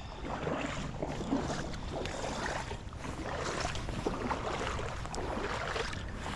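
A person walking: irregular steps and rustling, with a steady low rumble of wind on the microphone.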